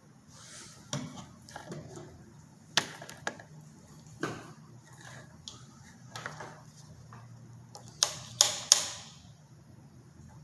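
Scattered sharp clicks and light knocks of plastic and metal being handled while a light and its cord are fitted in place, with a louder cluster of three clicks near the end.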